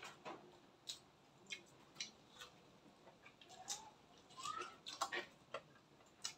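Soft mouth sounds of people eating rice and braised pork by hand: irregular lip smacks and chewing clicks. A few faint squeaky chirps come near the middle.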